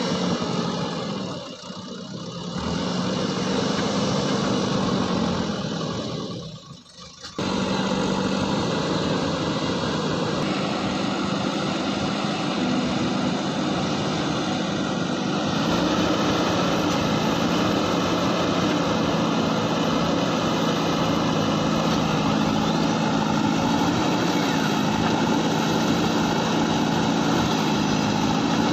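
JCB 3DX backhoe loader's diesel engine running steadily, with the sound dropping away briefly about two seconds in and again about seven seconds in.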